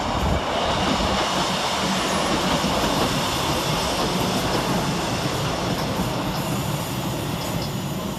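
Two coupled Class 156 diesel multiple units passing close by, their underfloor diesel engines and wheels running over the rails in a continuous rumble that eases slightly as they move away.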